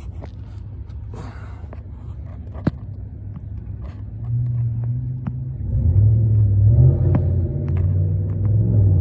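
A motor vehicle engine running nearby, a steady low rumble that grows louder about four seconds in, with a few scattered sharp metallic clicks of hand tools over it.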